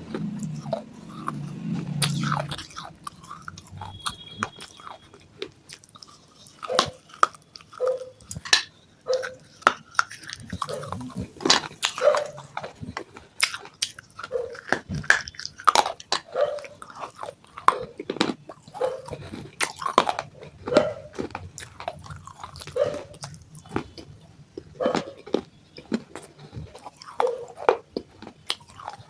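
Close-miked biting and chewing of broken baked-clay pot pieces: a steady run of sharp, dry crunches, roughly one or two a second. A low hum fades out in the first couple of seconds.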